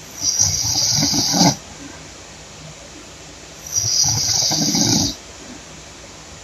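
Woman snoring loudly: two long, rattling snores with a breathy hiss, about three and a half seconds apart.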